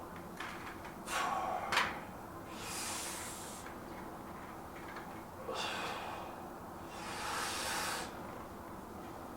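A man breathing hard through the nose and mouth after weight exercise, with four loud, hissing breaths spaced a second or two apart.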